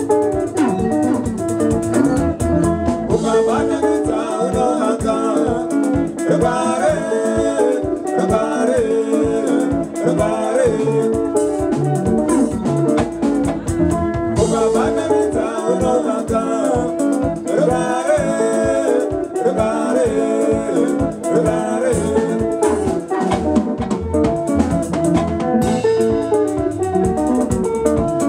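Live sungura band playing: electric guitars picking interlocking lines over a drum kit's steady beat, with singing.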